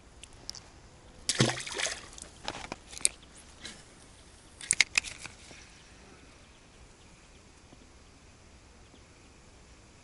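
Water splashing in several short bursts over the first five seconds, the first the loudest, then a faint steady background.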